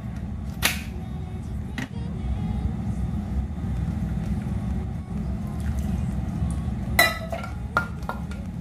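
A stainless-steel mixer-grinder jar being opened, topped up with cooked beetroot pieces and closed again. It makes a few clinks and knocks of the lid and jar, the loudest about seven seconds in, over a steady low hum.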